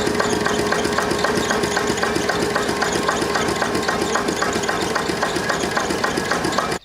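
Old engine running steadily at idle with an even, regular knocking beat over a steady hum; it cuts off abruptly near the end.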